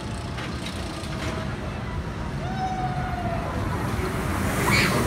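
Hollywood Rip Ride Rockit steel roller coaster train rumbling along its track, growing louder, with a rising whoosh near the end as the train passes close overhead.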